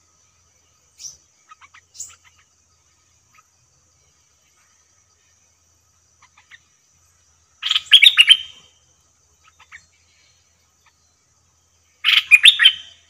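A bulbul singing two short, loud, rich warbled phrases about four seconds apart, with a few faint chirps before them. A faint steady high thin tone runs underneath.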